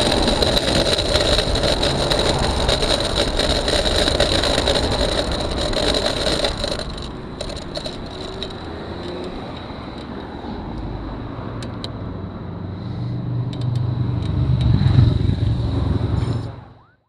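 Wind and road noise on a handlebar-mounted camera while riding a bicycle alongside traffic, louder for the first several seconds and quieter after. Near the end a motorcycle's engine swells as it passes, then the sound cuts off abruptly.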